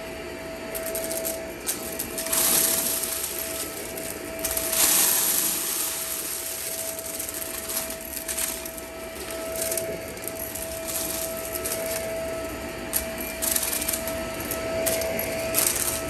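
Shark upright vacuum cleaner running on carpet with a steady whine, while small bits of debris crackle and rattle up through it in repeated bursts as it is pushed through the scattered pile.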